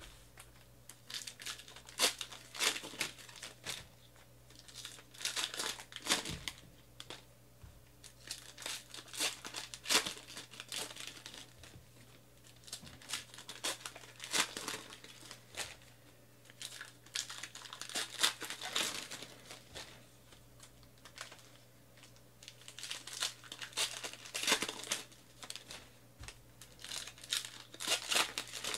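Trading-card pack wrappers crinkling and tearing as they are ripped open by hand, in irregular clusters of short crackles, with the cards inside being handled between packs.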